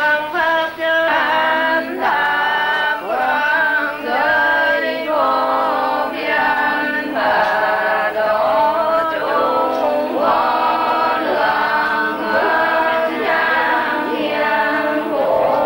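A group of voices singing a melodic devotional chant together, holding long notes and stepping between them, with short pauses for breath every few seconds.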